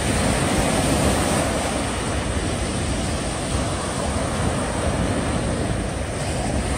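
Steady rushing of sea wind and surf, with wind buffeting the microphone.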